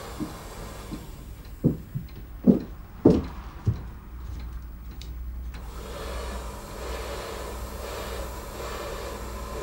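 Six dull, low thuds over the first four seconds, like footsteps across a floor. A steady low rumble sets in about halfway through.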